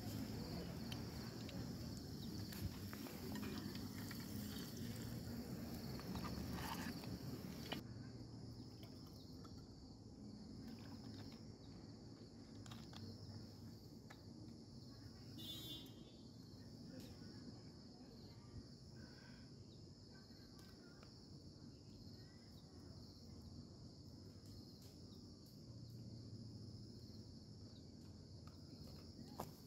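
Night insects such as crickets keep up a steady high-pitched chirring throughout. For the first several seconds an egg sizzles in a pan over a camp stove. After that only the insects remain, with a few faint clicks of utensils.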